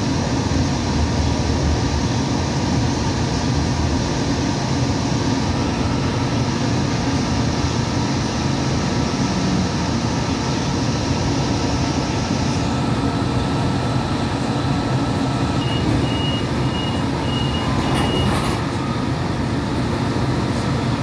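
Interior sound of a Hudson-Bergen Light Rail car running and slowing: a steady rumble and hum of motors and wheels on rail. A high hiss drops away about two-thirds of the way through. Near the end a rapid series of short high beeps sounds for about three seconds, with a brief burst of noise as it ends.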